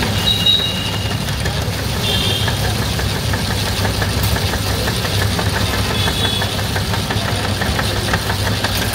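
Electric ice-shaving machine running with a steady low hum while a block of ice is shaved against its blade, a fast, even scraping rattle. A few brief high squeaks come through near the start and again about two and six seconds in.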